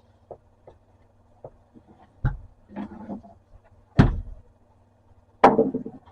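Knocks and clunks of an electric planer and tools being handled on a workbench: three sharp knocks among small clicks, the loudest about four seconds in.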